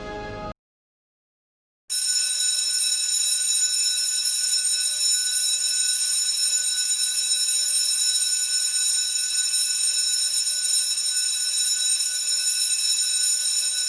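Electric school bell ringing continuously at a steady, unchanging pitch, starting about two seconds in after a brief silence.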